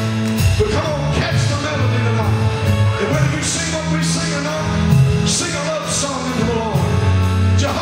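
Live gospel praise band playing: a drum kit with repeated cymbal crashes over held bass notes that change every second or two, with singing.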